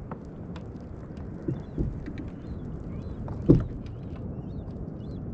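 Knocks and one sharp, louder thump about three and a half seconds in, on and around a fishing kayak, over steady wind and water noise. A few faint high chirps sit in the background.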